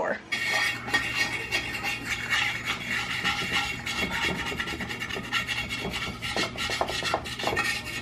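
A wet dishwasher tablet scrubbed rapidly back and forth against the glass door of a front-loading washing machine, scraping off hard-water stains: a continuous run of quick scratchy rubbing strokes.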